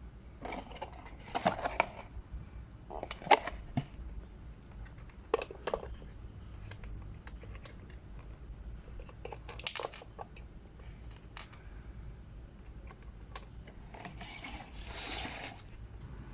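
Collectible blind-box packaging being handled and opened: short bursts of crinkling and rustling, with light clicks and taps in between. The longest rustle comes near the end.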